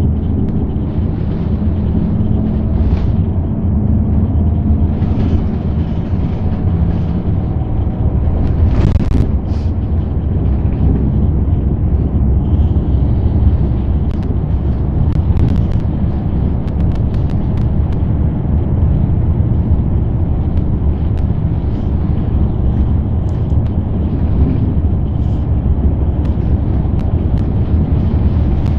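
City bus driving, heard from inside the passenger cabin: a steady low rumble of engine and road noise, with a few brief knocks or rattles.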